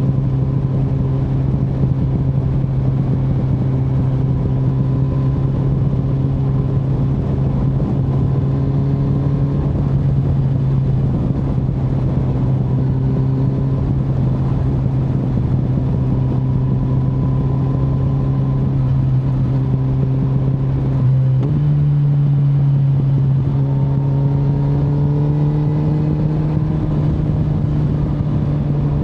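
Kawasaki Z900's inline-four engine running at steady road revs over a rush of wind noise. About two-thirds through, the engine note jumps up abruptly, then climbs gradually before easing slightly near the end.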